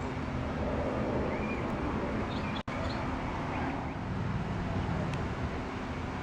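Outdoor background noise: a steady low traffic rumble with a few faint bird chirps. The sound drops out for an instant about two and a half seconds in.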